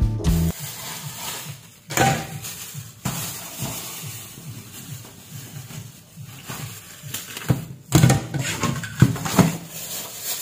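Rustling of a plastic bag and a few sharp knocks and clatters as live crabs are taken out of the bag and set down in a plastic basin. The loudest knocks come about two seconds in and again near the end.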